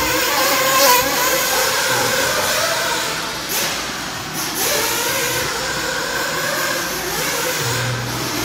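Radio-controlled off-road cars running on a dirt track: a high-pitched motor whine that rises and falls as the cars accelerate and slow.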